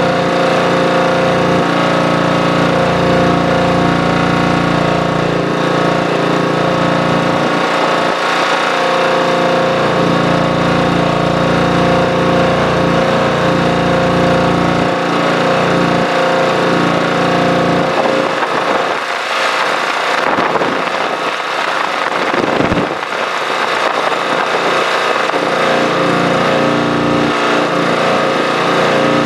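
Kubota M6-141 tractor's diesel engine running steadily. The deep low rumble thins out for a few seconds past halfway, then returns.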